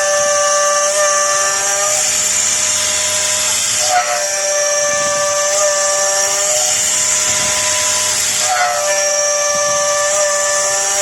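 CNC 4030 router spindle cutting aluminium: a steady high whine over a hiss. The tone dips and breaks briefly twice, about four seconds in and near nine seconds, then settles back.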